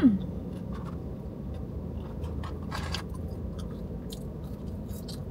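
Close-up chewing of fast food, with small wet mouth clicks and smacks scattered through, after a brief whooping exclamation right at the start.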